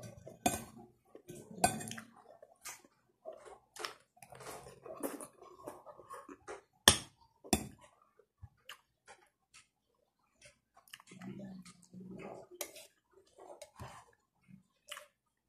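A person eating: a spoon and fork clinking and scraping on a plate between bouts of chewing, with one sharp clink about seven seconds in.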